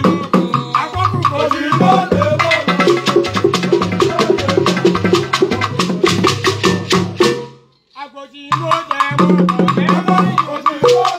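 Live Igbo traditional percussion: several hand drums and struck instruments played in a fast, interlocking rhythm. The playing stops for about a second near the eight-second mark, then starts again.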